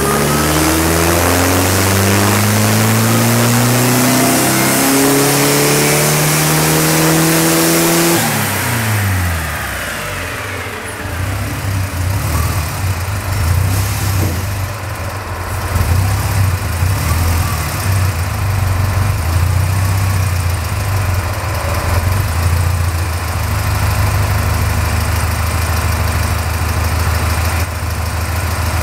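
Supercharged 1600 cc air-cooled VW Beetle flat-four (AMR500 supercharger, stock long block) climbing steadily in revs under full load on a chassis dyno for about eight seconds. Then the throttle closes, the revs drop quickly and the engine settles to a low, uneven idle.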